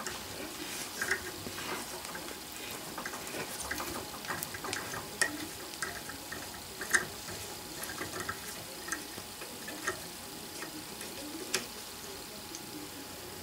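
Hand tap cutting 1/4-20 threads into aluminum plate, turned in a knurled tap holder: faint, irregular ticks and creaks as the tap cuts and the chips break.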